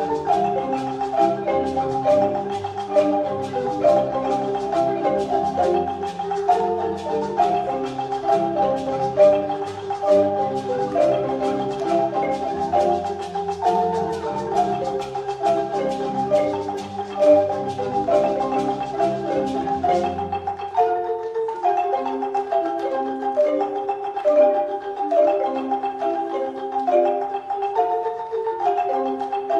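Ensemble of wooden marimbas playing a fast, repeating interlocking pattern. About twenty seconds in, the bass marimba drops out and the higher marimbas carry on alone.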